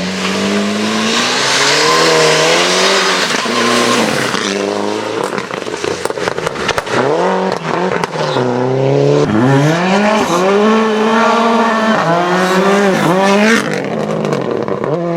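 Rally car engine at full throttle: the revs climb, drop at each quick gear change and climb again several times. Between about five and nine seconds in, a run of sharp pops and crackles sounds as the throttle is lifted.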